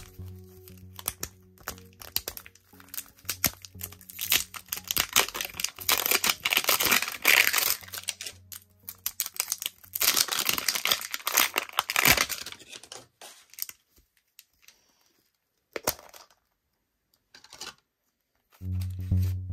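Crinkly plastic wrapping of a toy surprise ball being torn and crumpled as the ball is unwrapped and opened, in two long spells of crackling, then a few faint clicks.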